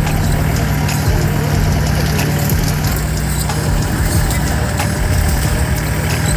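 Off-road vehicle's engine running steadily at a low, even pitch, with scattered short clicks and rattles over it.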